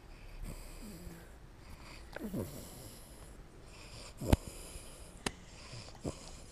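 Two-month-old American Staffordshire Terrier puppy asleep and dreaming: soft breathing through the nose, a short falling sound about two seconds in, and a few sharp mouth clicks as it makes chewing motions in its sleep.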